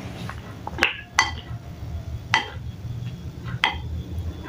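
A spoon stirring a bowl of meatballs in broth, knocking against the bowl in four or five separate sharp clinks.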